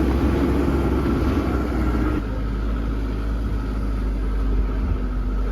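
A 4x4's engine and road noise while driving, a steady low rumble whose engine note shifts about two seconds in.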